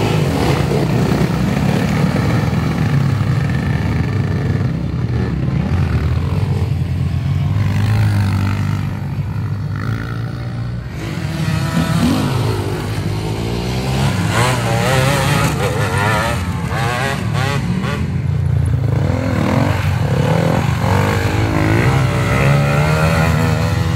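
Off-road dirt bikes racing past on a dirt track, their engines revving up and down again and again as the riders work the throttle, over a steady low engine hum.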